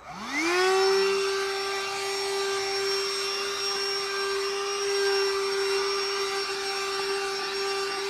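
Black & Decker Furbuster handheld vacuum switched on: its motor whine rises quickly to pitch, then runs steadily while the extended crevice tool is worked along the car's door and seat gaps.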